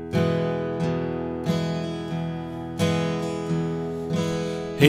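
Acoustic guitar playing a slow strummed introduction: six chords, each struck and left to ring before the next.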